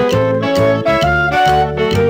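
Upbeat background music: keyboard and bass notes over a steady beat.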